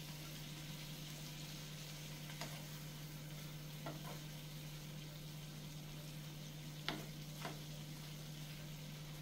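Shrimp sizzling gently in browned butter and garlic in a skillet, stirred with a wooden spoon that clicks against the pan a few times. A steady low hum runs underneath.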